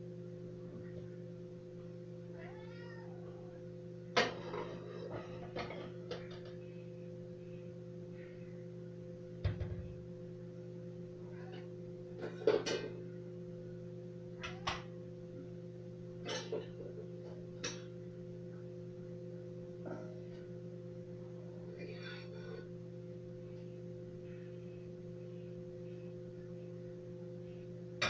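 Dishes and metal utensils clinking and clattering as a dishwasher rack is unloaded, over a steady hum. A cat meows a few times, about three seconds in and again near the end.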